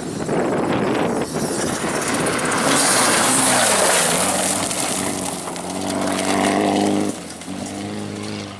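Rally car passing at speed on a gravel forest road: a rush of tyre and gravel noise loudest about three seconds in, then the engine note climbing under hard acceleration, with a sharp drop about seven seconds in as the driver shifts or lifts, before it pulls on.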